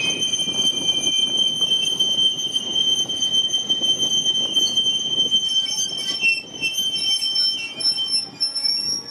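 Railway carriage wheels squealing on a curved track, several steady high whistling tones over the rumble and rattle of the moving carriages. About six seconds in, the squeal shifts to higher tones.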